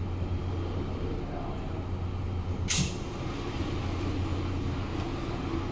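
A single sharp crack about halfway through, a shot from a Glock 19 pistol converted to fire .22 rimfire, over a steady low hum.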